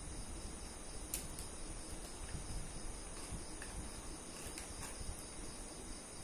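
Crickets chirring steadily in a high-pitched drone, with a few faint clicks.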